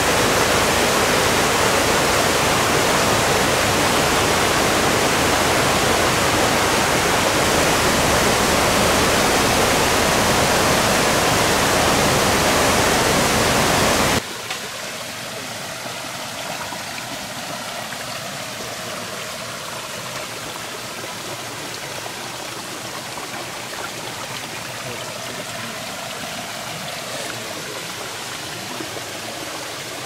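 Rocky mountain stream rushing white over boulders: a steady, loud rush of water. About fourteen seconds in, it drops suddenly to a quieter, steady flow.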